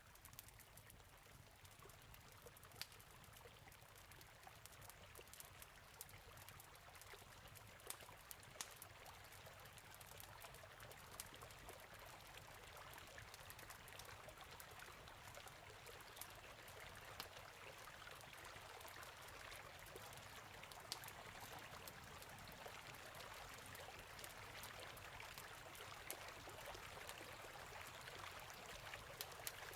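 Steady rush of flowing water mixed with the sharp, irregular snaps of a crackling campfire, growing slowly louder.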